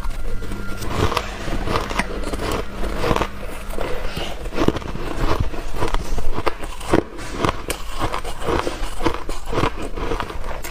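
Soft, powdery freezer-frost ice being bitten and crunched up close: a steady run of crisp crunches, several a second.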